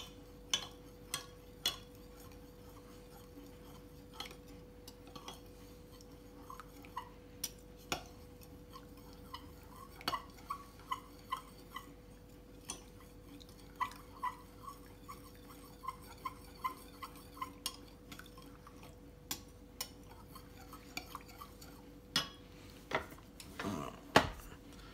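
A metal spoon stirring warmed stock and peanut butter in a glass measuring jug, clinking irregularly against the glass. A faint steady hum sits underneath, and there are a couple of louder knocks near the end.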